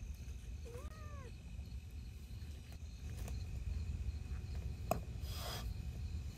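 A domestic cat gives one short meow about a second in, rising and then falling in pitch. A few faint clicks and a brief rustle follow near the end, over a steady low rumble.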